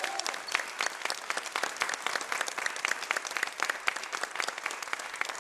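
Audience applauding at the end of a song: many hands clapping at an even density throughout.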